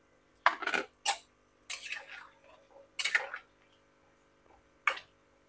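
Chunks of raw jackfruit dropped into a wok of boiling water: five sharp splashes and clatters, the last one near the end.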